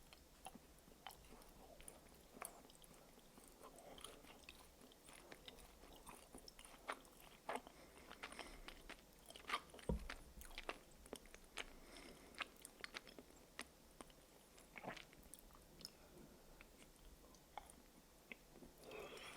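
Close-miked biting and chewing of Kinder Surprise Maxi milk chocolate, heard as many small, sharp, irregular clicks and snaps as the chocolate shell breaks in the mouth. The snaps come most thickly about halfway through.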